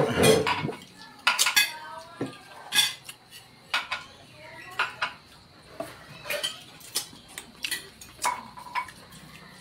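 Metal spoons and forks clinking and scraping on dinner plates as people eat, in irregular sharp clicks of varying loudness.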